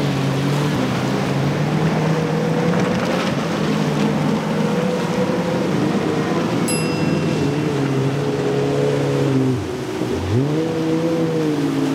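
Triple Mercury 400 outboard engines on a 33-foot Conch center-console running at speed, a steady engine drone over the rush of water and spray. About ten seconds in, the engine pitch drops briefly and climbs back.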